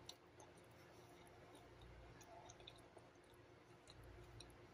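Near silence: room tone with a few faint, small clicks.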